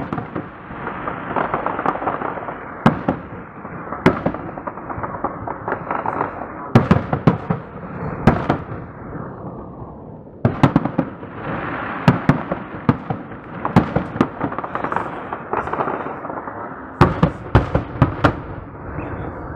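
Festive fireworks salute: aerial shells bursting in repeated sharp bangs over a noisy crackling wash. The volleys swell and die away, then start again every few seconds, with the strongest bangs about a third of the way in and near the end.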